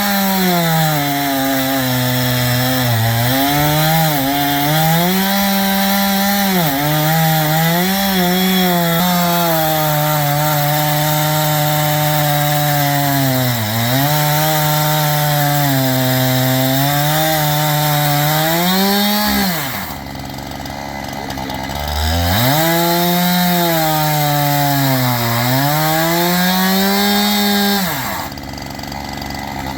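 Two-stroke chainsaw running at high revs while cutting lengthwise through a log, its pitch sagging and recovering again and again as it loads up in the cut. About two-thirds through it drops back to idle, revs back up, then drops to idle again near the end.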